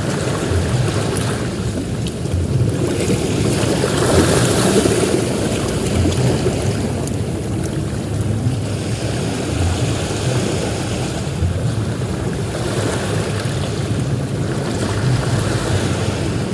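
Ocean surf breaking and washing onto a beach, swelling twice.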